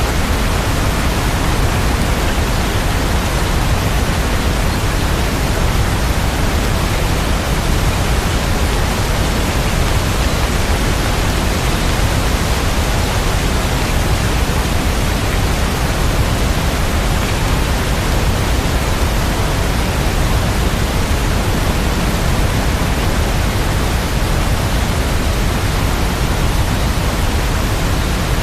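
Steady, even hiss of heavy rain, with no single drops or other sounds standing out.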